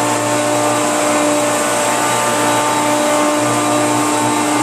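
Hoover PowerMax Supreme direct-air upright vacuum's two-speed motor running loud and steady on low speed, a constant whine over the rush of air.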